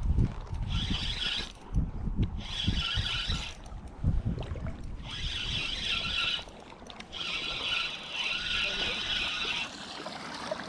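Spinning reel cranked in four runs of a second or two each with short pauses between, a whirring retrieve as a hooked walleye is reeled in.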